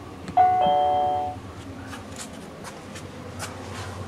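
A single electronic chime of several tones at once sounds about half a second in and rings for about a second, over a low steady hum. A few faint clicks follow.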